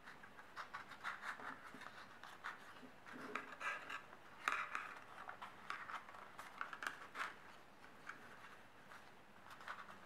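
Pleated paper rustling and scratching as the folded layers are squeezed together and slid along a wooden skewer: a run of short, irregular crackles, busiest in the middle and thinning out near the end.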